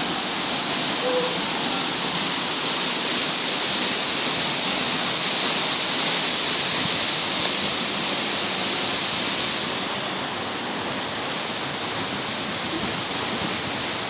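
Waterfall pouring into a plunge pool: a steady, even rush of falling water. About nine seconds in, the hiss becomes a little duller.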